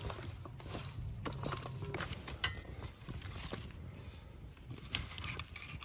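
Hands squishing and turning seasoned raw chicken drumsticks in a stainless steel bowl: wet squelches and knocks of meat against the metal, thick for the first few seconds, then a few sparse sharp crackles from the wood fire.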